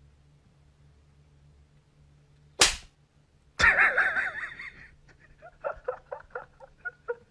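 A sharp slap sound effect, one clean smack about two and a half seconds in, as the adult cat bats the kitten. A loud wavering high-pitched sound follows for about a second, then a run of short quick pulses.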